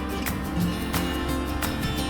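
Background music with a guitar and a steady beat.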